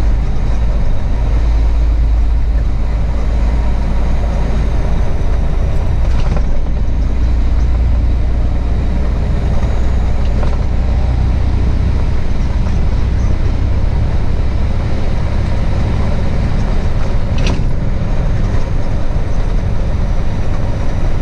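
Semi truck's diesel engine and road noise heard from inside the cab while driving: a steady low rumble, with a few brief knocks.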